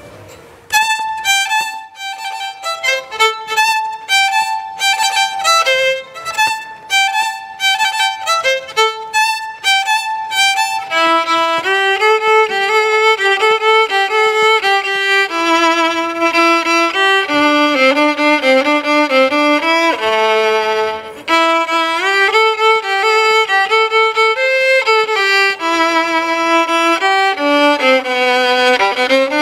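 Solo violin playing a melody: short, separate bowed notes for about the first ten seconds, then longer notes joined into a flowing line.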